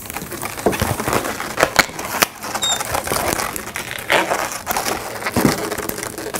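Latex twisting balloons squeaking and rubbing against each other and the hands as they are twisted, with many irregular sharp clicks and a brief high squeak about two and a half seconds in.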